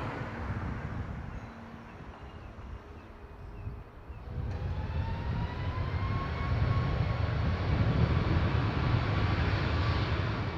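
Jet airliner engines. A steady noise turns, about four and a half seconds in, into a louder rumble with a thin whine rising in pitch, then holding high.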